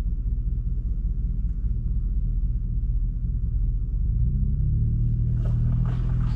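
Off-road truck engine rumbling at low speed on a dirt trail. The engine note rises and strengthens about four seconds in, with a brief clatter near the end.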